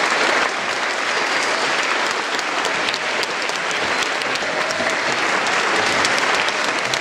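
Large audience clapping in steady, sustained applause.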